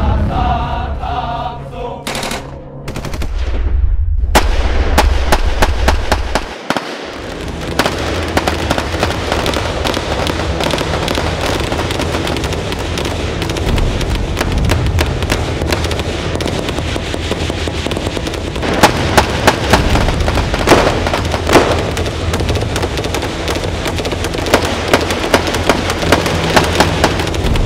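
Sustained automatic gunfire from rifles and machine guns, dense rapid shots that start about four seconds in and run on without a break, with louder single cracks standing out in the second half. Background music and a deep low drone fill the opening seconds.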